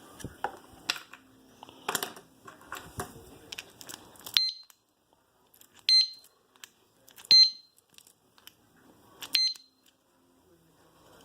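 Alarmed motorcycle disc lock being handled: a few clicks and rattles, then four short high beeps, each starting with a sharp click and spread over about five seconds.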